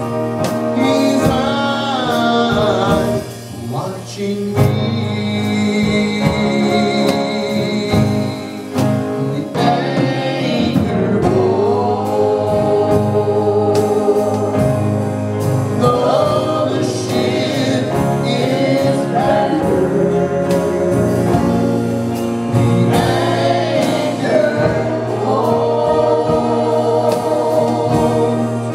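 Live Southern gospel group singing in harmony, with men's and women's voices holding long notes with vibrato over strummed acoustic guitar. The singing eases off briefly about three to four seconds in.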